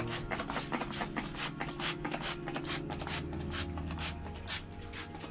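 Hand trigger spray bottle squeezed over and over, giving a quick, even run of short hissing squirts, about four or five a second, as it mists disinfectant.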